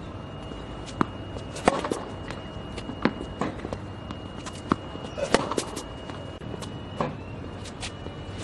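Tennis balls fed by a small iTennis Pow ball machine and struck with a racket on a hard court: sharp pops of launches, racket hits and bounces, one to two seconds apart, with a faint steady high whine underneath.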